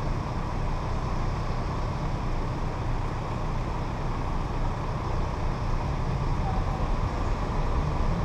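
Steady low rumble of a car creeping forward in slow traffic: engine and road noise with no sudden events.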